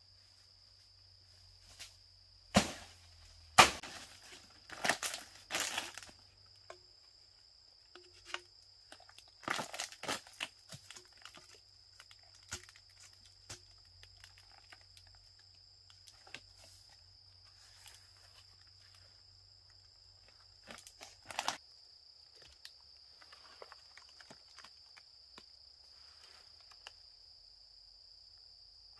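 Footsteps and crunching through dry palm fronds and leaf litter, with two sharp cracks about two and a half and three and a half seconds in and bursts of rustling later. A steady high insect drone runs underneath.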